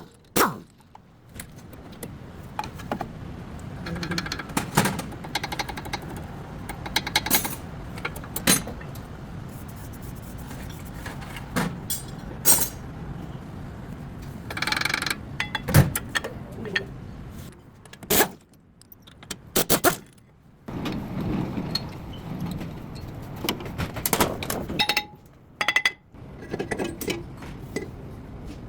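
Intermittent metallic clanks, knocks and scrapes of hand tools and parts being handled, as in brake work, over a steady background.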